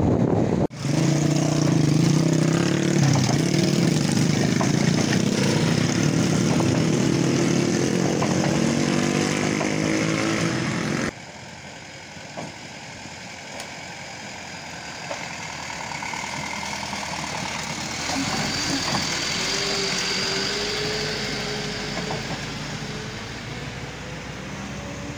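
Wind buffeting the microphone hard on an open beach. After a sudden cut the sound drops to quieter roadside ambience, and from about two-thirds of the way in a motorcycle engine runs close by, its note wavering and rising a little.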